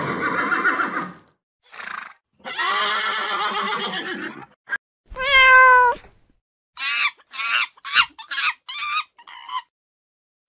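Horses whinnying, with a long call in the middle. Then a cat meows once, followed by a quick run of about six short, sharp animal calls.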